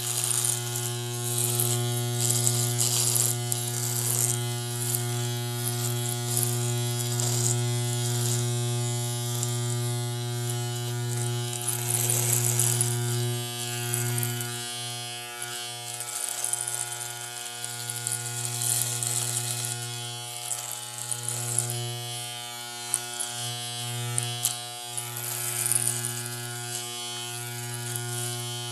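Electric razor running with a steady buzz, its high hiss swelling and fading again and again, with a few brief dips in the buzz about halfway through.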